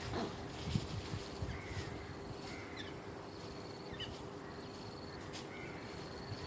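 Evening outdoor ambience: a steady high-pitched insect drone under an even hiss, with short scattered bird chirps. A few soft low knocks come in the first second or two.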